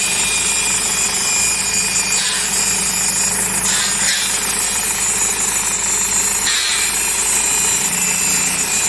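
Cat 424B backhoe loader's diesel engine running steadily, with a loud, even rattling clatter.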